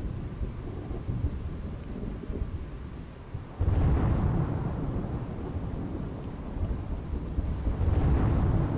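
Heavy rain with thunder rolling: one rumble breaks in suddenly about three and a half seconds in and slowly fades, and another swells up near the end.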